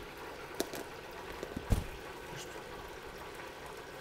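Hot sauce being poured into a glass mason jar of brown sugar, with two sharp knocks, the louder one a little under two seconds in.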